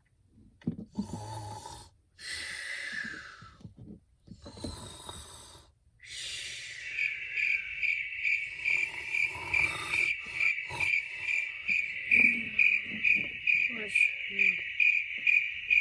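Three long raspy snoring breaths, each about a second. Then, from about seven seconds in, a high-pitched chirping repeats steadily at two to three chirps a second and is louder than the snores.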